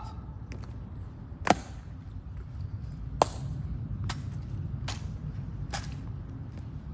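Sharp clicks of the honor guards' metal-tapped dress shoes striking the wet stone plaza as they march, about one step a second, with two louder cracks, one about a second and a half in and one about three seconds in.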